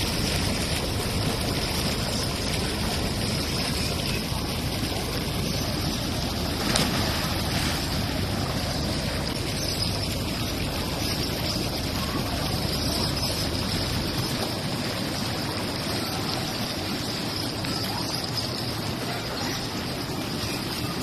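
Spa jets churning and bubbling the water in a steady rush. The low rumble underneath fades about two-thirds of the way through, and there is one brief sharper sound about seven seconds in.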